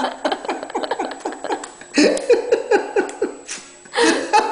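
A person laughing in two runs of short 'ha' sounds, each falling in pitch, several a second, with a brief pause between the runs.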